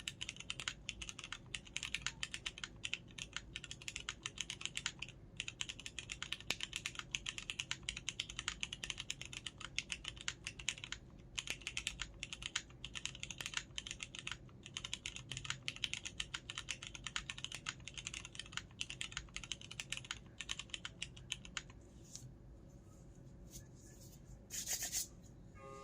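Fast, continuous typing on a mechanical keyboard with Cherry MX Brown tactile switches and CRP R4 keycaps, with a few short pauses. The typing stops a few seconds before the end, and a brief burst of noise follows.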